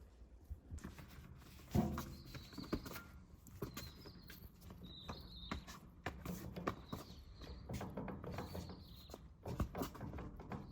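Irregular sharp clicks and knocks, the loudest about two seconds in, with faint short chirps in the background several times.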